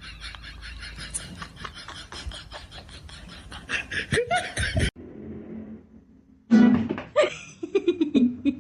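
People laughing, with music underneath. The sound cuts off abruptly about five seconds in, stays quieter for a moment, then comes back loud for the last two seconds.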